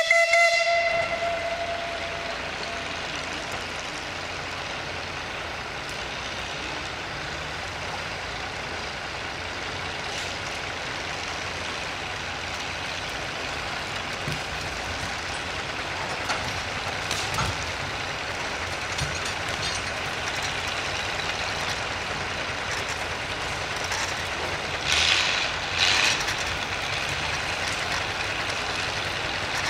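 Steam donkey engine's whistle gives one short, loud blast at the very start, fading within a couple of seconds, then the steady hiss and running noise of the steam engine, with two louder hisses of steam near the end.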